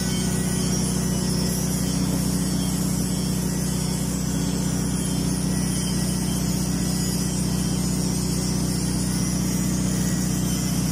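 Automatic tank-shell welding carriage running a capping pass: a steady low machine hum with an even hiss on top.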